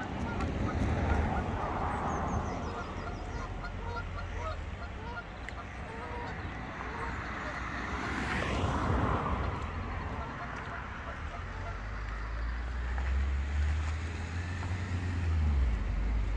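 Waterfowl at a boating lake, geese and ducks, giving a run of short honks and quacks over a low rumble of road traffic. A broad whoosh rises and falls about eight seconds in.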